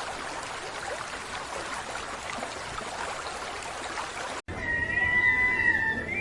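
A steady hiss with faint high squeaks, then, after a sudden cut, one long high-pitched animal cry held with a slightly wavering pitch.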